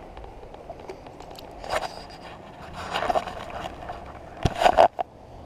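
Close handling noise in a kayak: clothing and gear rustling and scraping, with a few sharp knocks, loudest about three seconds in and again in a quick cluster about four and a half seconds in.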